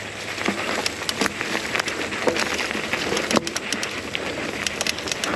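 Mountain bike rolling along dry dirt singletrack: steady noise of the knobby tyres on the dirt with irregular clicks and rattles from the bike over bumps.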